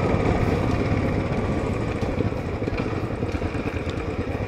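Royal Enfield Classic 500's single-cylinder engine running at low speed as the motorcycle rolls down a rough dirt track, a steady run of low engine pulses that ease off slightly about two seconds in.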